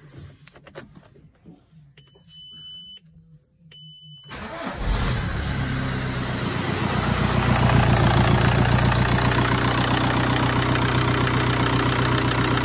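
Audi A4 2.0 TDI Pumpe-Düse four-cylinder diesel engine starting up about four seconds in, catching quickly and settling into a steady idle, after two short beeps. This is the engine's first start after its worn camshaft and followers were replaced.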